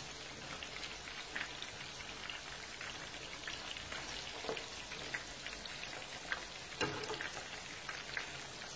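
Sardine meatballs frying in hot oil in a pot: a steady crackling sizzle, with a few sharper clicks.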